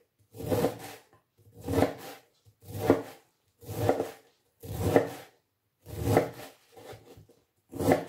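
A large kitchen knife shredding a wedge of white cabbage finely on a bamboo cutting board, about one stroke a second.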